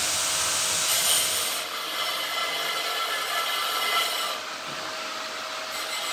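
Steady rasping and rubbing from hand work on a blue PVC water pipe during a booster pump installation, easing off in steps a couple of times.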